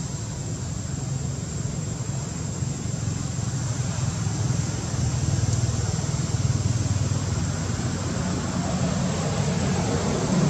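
Steady low rumbling outdoor background noise, slightly louder in the second half, with no distinct animal calls.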